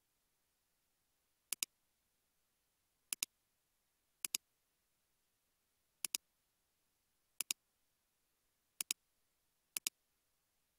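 Computer mouse clicking, seven times at uneven intervals of one to two seconds, each a quick double click against a silent background.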